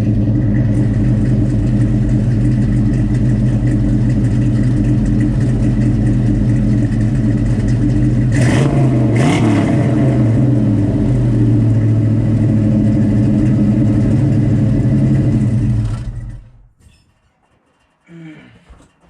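Ford Mustang 5.0 V8 idling steadily through a new, loud exhaust, with a brief rev about halfway through. The engine is shut off about three-quarters of the way in and the sound dies away.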